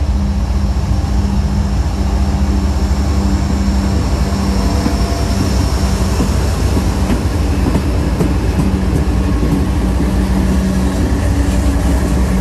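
GE ET44AC diesel-electric freight locomotives passing close by, their 12-cylinder GEVO engines running with a steady drone over the rumble of the train rolling on the rails.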